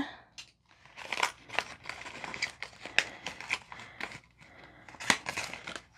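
Crinkling and rustling of a packaging pouch as it is handled and opened, in quick irregular bursts.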